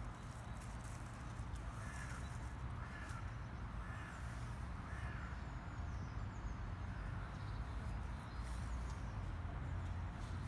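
Birds calling: a run of four short calls, about one a second, over a steady low hum.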